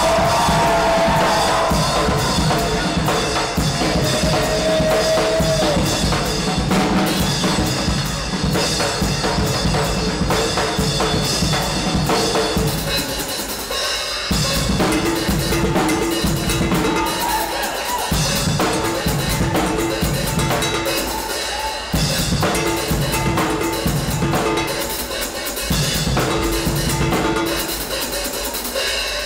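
Acoustic drum kit played live at a fast, steady beat: bass drum, snare and cymbal hits, with pitched music running underneath.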